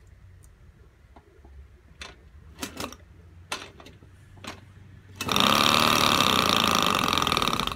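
Jawa Babetta moped's small two-stroke engine being pedal-started: a few clicks as the pedals are pushed, then about five seconds in it catches and runs with a loud, high buzz. It makes an ugly noise that the owner traces to a loose, wrong shaft oil seal under the ignition that won't stay in place.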